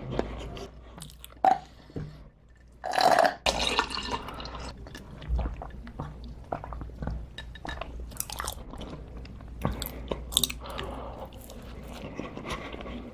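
Close-miked eating: crunchy bites and chewing, many short crackles, with the loudest bite about three seconds in.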